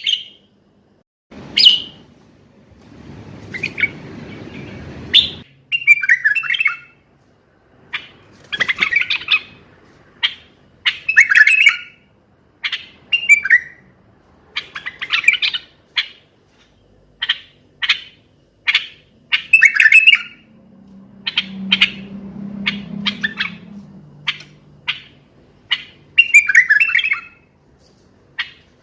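Common bulbul singing: a string of short, loud, bubbling phrases repeated every second or two. Quieter low rumbling noise runs under the song twice.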